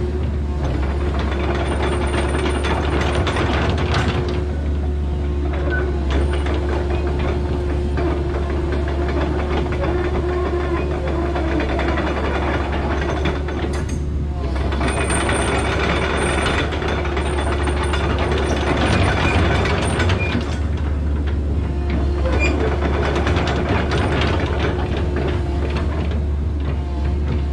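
Komatsu PC138US-8 excavator's diesel engine running under steady load, with dense metallic clicking and clattering from the machine working. The clatter eases briefly a few times.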